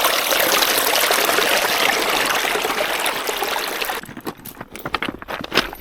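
Steady rush of running water that cuts off suddenly about four seconds in, followed by quieter irregular crunches and clicks.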